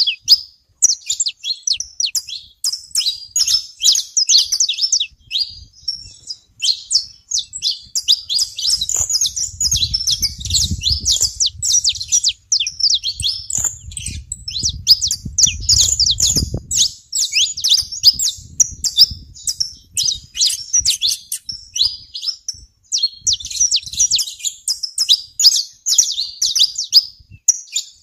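Flock of saffron finches chirping, many short high notes overlapping without a break. A low rumble comes in about nine seconds in and stops about eight seconds later.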